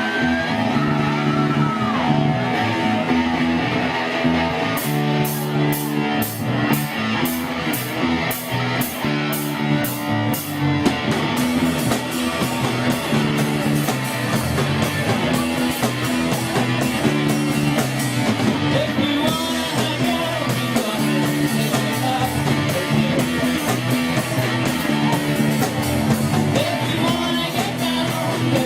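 Live rock band playing: electric guitar and bass over a drum kit, with some singing. A run of steady cymbal strokes, about two a second, comes in about five seconds in and drops back a few seconds later.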